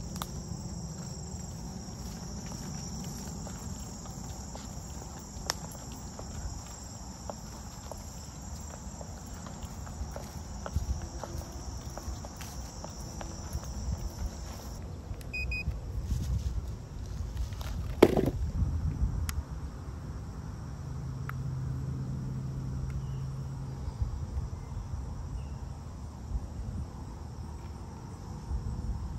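Insects trilling steadily in the grass until about halfway, over footsteps and handling noise. A single sharp knock comes a little after the middle.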